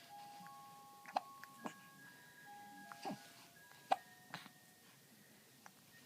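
A tinkling electronic tune of plain single notes stepping up and down, typical of a baby's musical toy or mobile. Several short sharp sounds cut in over it, the loudest about four seconds in.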